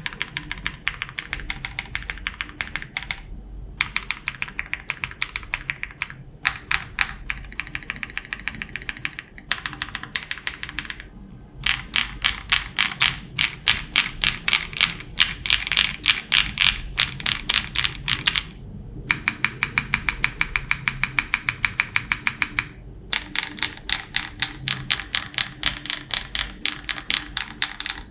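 Typing on a Tenet70 gasket-mount mechanical keyboard with linear switches (Gateron KS3 housings, Kailh Pro Burgundy stems) on a polycarbonate plate: fast runs of keystrokes broken by short pauses between bursts.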